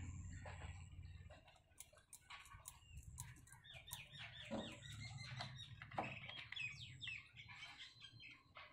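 Birds chirping in a quick run of short calls, with scattered small clicks; a low rumble fades away about a second and a half in.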